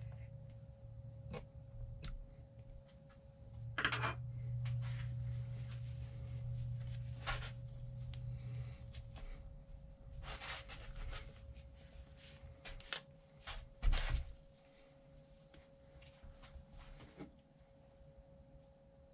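Scattered clicks, taps and rubbing of small parts being handled during work on a suspension seatpost's internals, with a sharper knock about 14 seconds in, over a steady faint tone and low hum.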